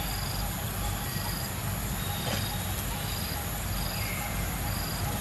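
Insects calling: a steady high buzz with a short, regular chirp repeating about once a second, over a steady low rumble.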